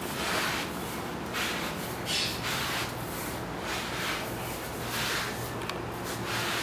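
Breathing: a series of short breathy hisses about a second apart, over a faint steady hum.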